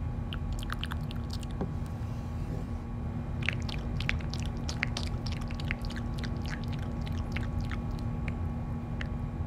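Irregular small clicks and crackles, a short flurry at the start and then a dense run from about three and a half to eight and a half seconds in, over a steady low hum.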